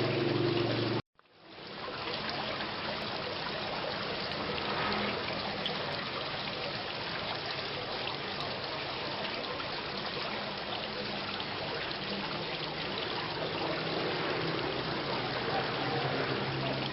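Steady rain falling, an even hiss of raindrops. About a second in it cuts out abruptly for a moment, then fades back in, like an audio loop restarting.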